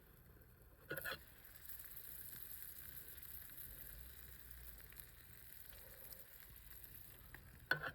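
Faint, steady hiss and light crackle of a campfire, broken by a brief louder rustle or knock about a second in and another pair near the end.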